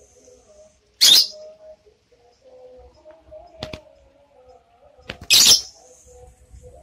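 Light-blue lovebird giving two short, harsh shrieks about four seconds apart, with one sharp click between them.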